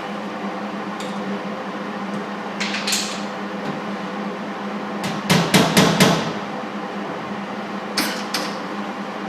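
Sharp metallic clicks and taps from hand tools on metal: a pair about three seconds in, a quick run of about five around the middle, and one more near the end, over a steady low hum.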